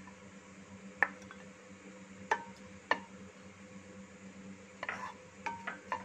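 Wooden spatula knocking and scraping against a non-stick frying pan while stirring sliced onions in a little ghee: single sharp knocks about a second in and twice more a little later, then a quick run of taps near the end.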